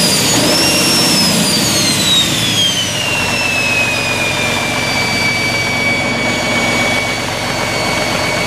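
Caterpillar D343 turbocharged six-cylinder diesel engine running, with a high turbocharger whine that falls in pitch over the first few seconds as the engine slows, then holds steady as it settles to idle.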